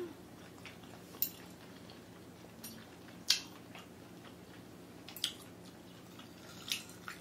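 Metal chopsticks clicking against a plate and a small sauce bowl: about five short, sharp clicks spaced a second or two apart, the loudest a little past three seconds in, over a faint steady hum.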